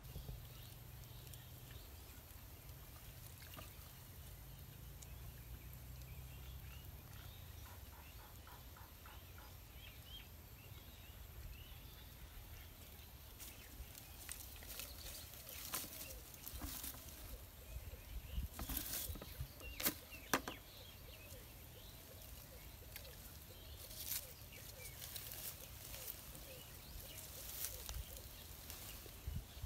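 Quiet outdoor ambience: a steady low rumble, faint bird chirps, and scattered sharp rustles and clicks, bunched in the middle and toward the end, as plants are brushed and handled.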